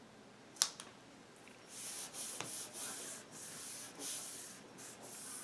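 Hands rubbing and smoothing paper flat onto a freshly glued journal page: a dry swishing that comes in repeated strokes, after a single sharp click about half a second in.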